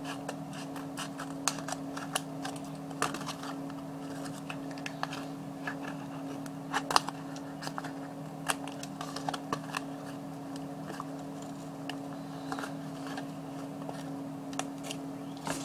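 Scattered light clicks, taps and rustles of a cardboard-box dollhouse and paper being handled, over a steady low hum.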